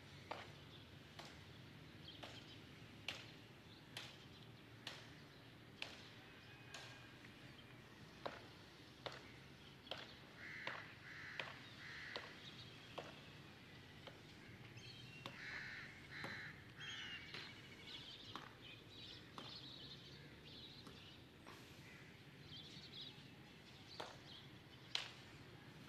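Faint crows cawing in harsh bursts, mostly in the middle stretch, over a low steady hum, with sharp ticks about once a second.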